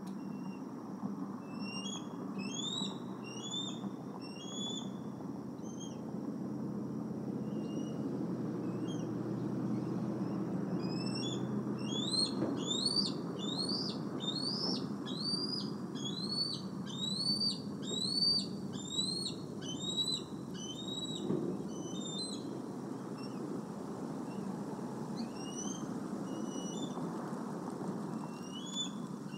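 Young bald eagles calling: series of high, piercing chirps, each rising then dropping, in a few short bouts and one long, faster run in the middle, over a steady low hiss of ambient noise.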